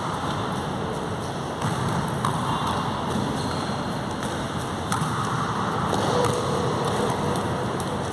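Footfalls and light thuds of players running and hopping over mini hurdles on an indoor gym floor, scattered through a steady rushing noise in the hall.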